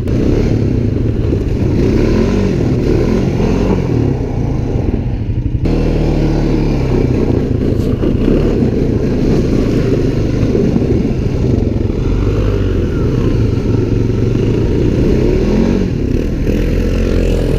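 Off-road utility vehicle engine running under way, a steady drone that rises and falls in pitch with the throttle. The sound changes abruptly about six seconds in.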